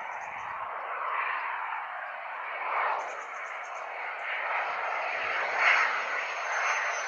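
Aircraft engine noise from a plane at the airport: a steady rushing that swells and eases a few times, with a thin high whine coming in partway through.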